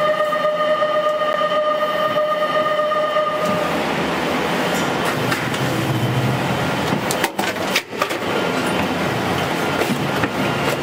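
Unfiltered mechanical noise at an aerial ropeway station: a steady high tone with overtones for the first three and a half seconds, then a broad rushing rumble with a low hum, dipping briefly twice around seven to eight seconds in.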